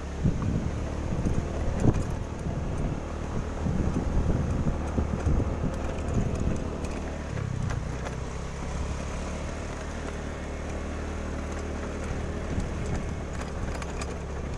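A vehicle's engine running steadily under way, with wind buffeting the microphone.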